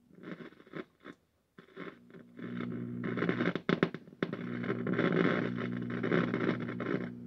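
Crackling, hissing static from a 1963 RCA tube TV as it warms up on full line voltage. It comes in short bursts for the first two seconds, then runs almost continuously over a low steady buzz that sets in a couple of seconds in.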